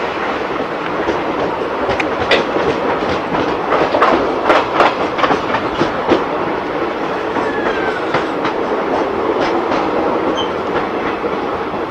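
Passenger train coach running along the track with a steady rushing noise, its wheels clacking over rail joints. The clacks come thickest in the first half, then thin out.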